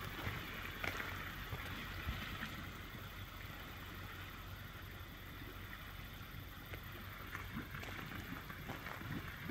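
Steady splashing and lapping of water with a few small sharp splashes, from a crowded flock of American white pelicans feeding on the surface, over a low steady hum.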